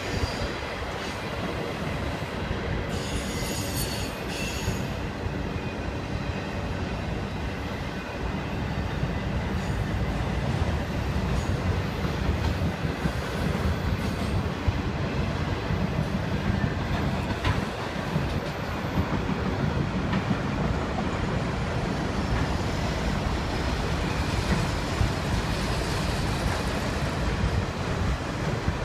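CSX autorack freight cars rolling across a steel girder railroad bridge: a steady rumble and clatter of wheels on rail, with a brief high wheel squeal about three to five seconds in.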